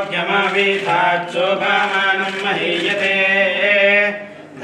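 Men's voices chanting Sanskrit Vedic mantras in a steady recitation that mostly holds one pitch, with a short break near the end.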